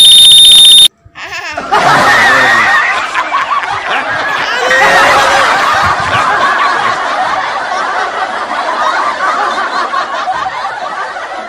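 A very loud, harsh sound effect with a steady high tone for under a second, then a dubbed laughter sound effect, snickering and chuckling on and on for the rest.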